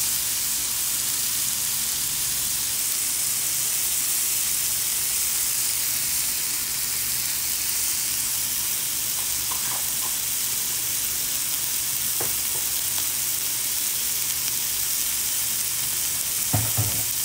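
Beef steak cubes frying in oil on a thin steel griddle, a steady high sizzle. A few faint ticks come midway and a louder knock near the end.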